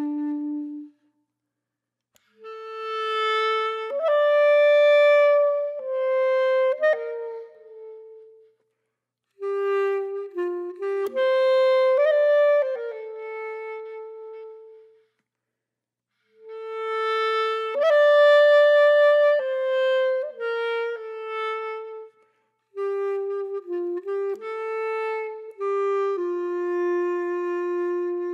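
Background music: a solo woodwind instrument playing a slow melody in phrases a few seconds long, with complete silences between the phrases.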